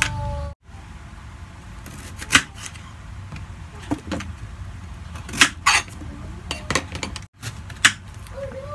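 A kitchen knife and beetroot knocking on a plastic cutting board while the ends of peeled beetroot are cut off: scattered sharp taps, the strongest about two and a half seconds in, twice in quick succession around five and a half seconds, and once near the end.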